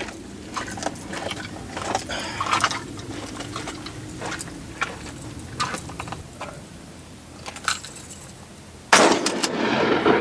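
Small metallic clicks and clinks of a 12-gauge pump shotgun and its shells being handled between shots. About nine seconds in, a loud burst of rushing noise lasts over a second.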